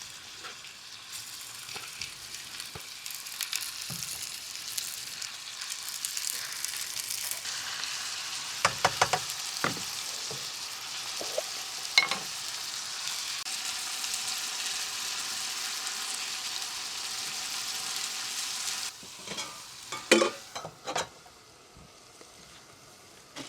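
Food sizzling in a hot pan, stirred with sharp clicks and knocks of a utensil. The sizzle grows louder partway through and cuts off suddenly near the end, followed by a few knocks.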